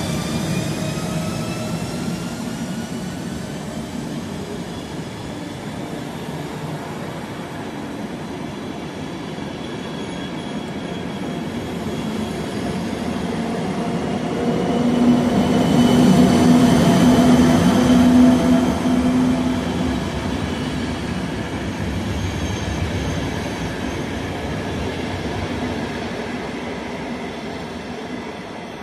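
ÖBB class 1144 electric locomotive hauling a train of passenger coaches past, at first with a whine that rises in pitch as the train picks up speed. Then comes the steady rolling of the coaches' wheels on the rails, loudest about halfway through, fading near the end.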